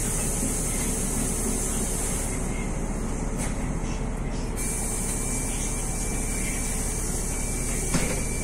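Bus engine idling steadily, heard from inside the passenger cabin while the bus stands still. A high hiss stops about two seconds in and comes back about four and a half seconds in, and there is a single click near the end.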